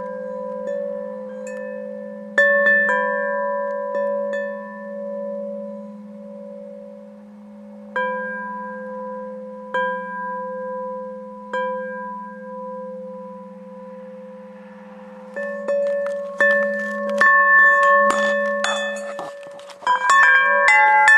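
A wind chime of tuned metal tubes is struck a few times, its tones ringing on long and overlapping. In the last few seconds it is set swinging, with many quick strikes clashing together.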